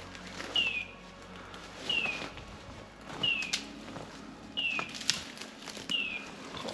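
Bird dog's beeper collar sounding a short falling high tone about every 1.3 seconds, the steady repeating signal a hunter follows to find a dog on point, with twigs and brush crackling underfoot.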